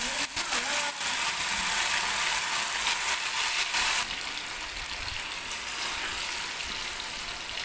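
Breaded chicken rolls deep-frying in a kadai of hot oil: steady sizzling with fine crackles, a little quieter about four seconds in.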